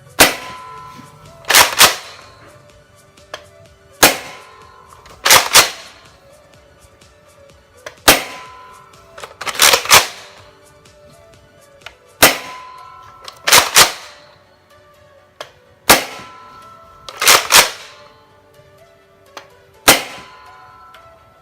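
Nerf Rival Helios blaster being fired and re-primed over and over: a sharp pop, then about a second and a half later two quick plastic clacks of the bolt being worked. The cycle repeats about every four seconds, six times, over faint background music.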